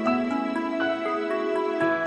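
Calm instrumental background music: a melody of held notes changing every fraction of a second over sustained lower notes.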